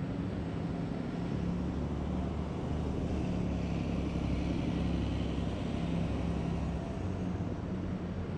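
A car driving: steady low engine hum and road rumble, which builds about a second in and eases off over the last couple of seconds.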